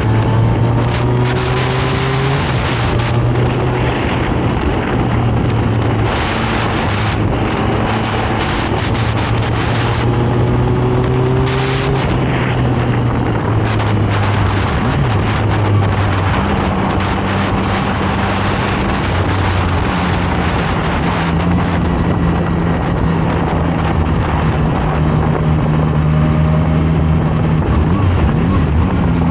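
Zontes 703RR sport motorcycle's inline three-cylinder engine running under way, its pitch holding and then stepping up and down several times as the revs change. Wind rushes over the microphone throughout.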